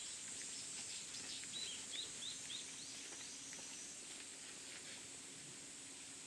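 A small bird gives a quick run of four or five short chirps about one and a half seconds in. Underneath is a steady high hiss of outdoor ambience with scattered faint ticks.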